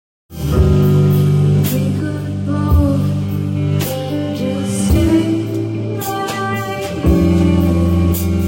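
Music with guitar and drums, likely rock with a vocal line, starting abruptly just after the beginning and keeping a steady beat of about one hit a second.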